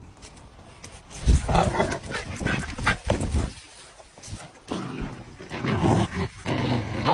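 A dog making short, irregular vocal noises, beginning about a second in.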